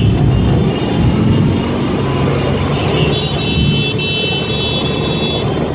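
Ural 750 sidecar motorcycle's flat-twin engine running at a steady cruise, with other motorcycles of the group running around it. A high steady whistling tone sounds for about two seconds in the second half.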